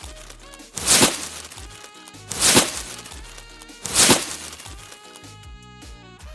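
Background music with a short hissing sound effect repeated three times, about a second and a half apart.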